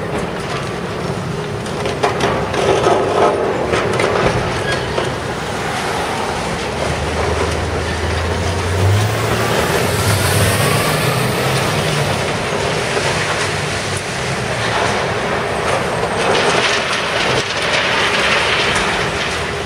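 A hydraulic demolition excavator breaking up a reinforced-concrete building: its diesel engine runs under load while broken concrete clatters and crumbles down, with a cluster of sharp knocks a few seconds in. The engine note rises about nine seconds in.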